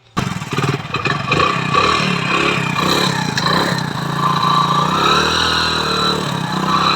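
Hero Splendor Pro's single-cylinder four-stroke engine running in gear, with a steady whining hum over the engine note that rises and falls slightly. The mechanic puts the hum down to a worn primary drive pinion (the 'GPT pinion') in the clutch case.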